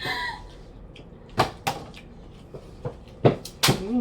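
Plastic water bottle flipped and striking a tabletop: four sharp knocks in two pairs, each pair a landing followed by a second hit as it topples.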